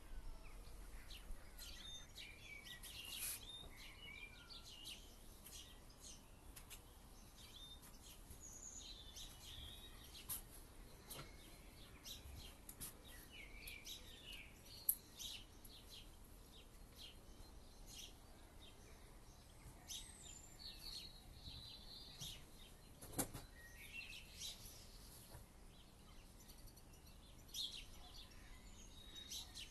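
Faint outdoor ambience with scattered small-bird chirps and calls. Two sharp clicks stand out, one about halfway through and one about two-thirds of the way through.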